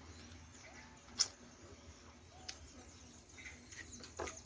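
Quiet, wet mouth sounds of eating with the fingers: lip smacks and finger-sucking clicks, the sharpest about a second in, with faint squeaky squelches between them.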